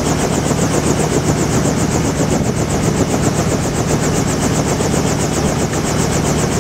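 Helicopter running on the ground: a steady engine hum under a fast, even chopping of the rotor blades.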